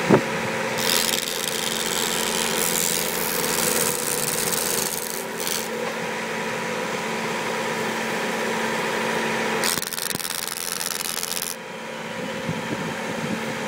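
Star Strimmer fence-line trimmer running steadily with a hum, its spinning heads cutting grass along a fence. A sharp knock comes right at the start, and twice a harsher hiss swells for a few seconds.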